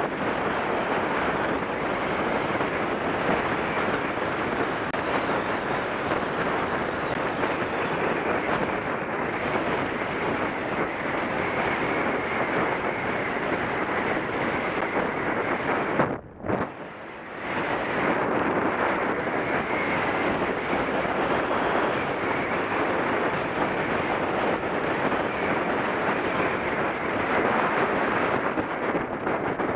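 Wind rushing over an action camera's microphone on a fast bicycle ride down an asphalt road, a loud steady noise that drops away for about a second midway through.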